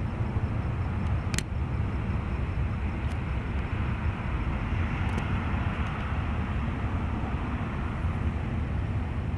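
Jet airliner flying high overhead, heard as a steady distant rumble that swells slightly in the middle. A few faint clicks.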